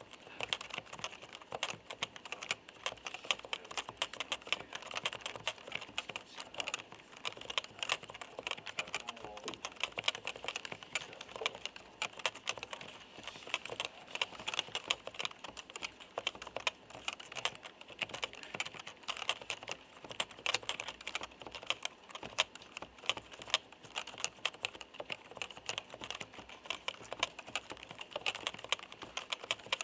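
Continuous fast typing on a Topre FD-0100 keyboard with electrostatic capacitive (Topre) switches: a steady stream of light, clacking keystrokes.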